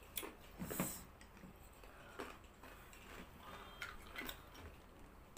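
Faint, scattered mouth clicks and lip smacks of eating: noodles being chewed and fingered from a plate by hand, with about half a dozen short smacks spread out.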